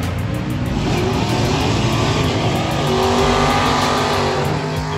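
Race car engine running loud, its pitch climbing partway through.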